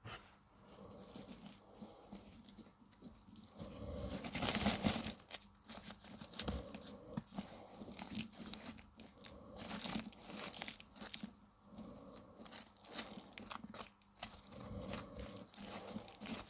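Irregular crunching and rustling of clay pebbles and gravel around small plastic cactus pots being handled, with many small clicks, loudest about four to five seconds in.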